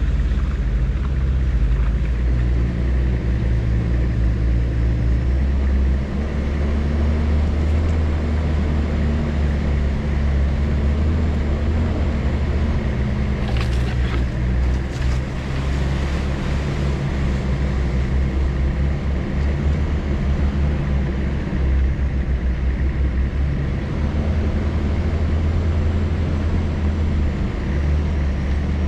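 An off-road vehicle's engine running steadily at low revs, its pitch shifting a few times as it drives a rough track. A few sharp knocks come about halfway through.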